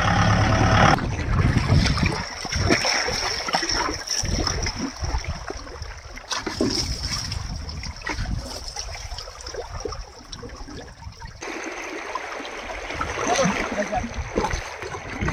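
Muddy river water splashing and trickling around a tractor standing in the shallows.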